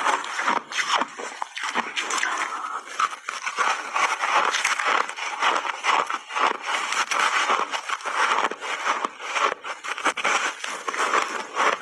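A frost-coated chunk of refrozen mixed-berry ice crunching and cracking as it is bitten and chewed close to the microphones: a dense, continuous run of sharp cracks.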